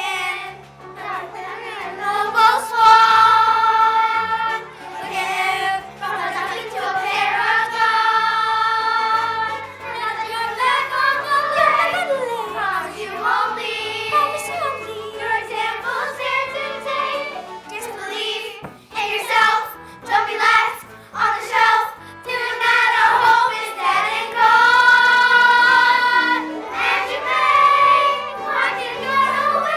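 A young cast singing a show tune together over a musical accompaniment, with several long held notes.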